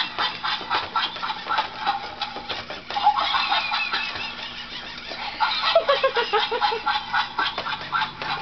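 Motion-activated plush toy monkey playing recorded monkey chatter: fast, squeaky chattering calls. About six seconds in comes a short run of hoots falling in pitch.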